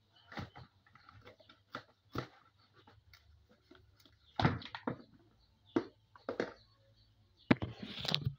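Kitchen knife cutting through raw butternut squash over a plastic basin: a series of crisp crunching cuts and knocks at irregular intervals, with a louder, longer scraping noise near the end.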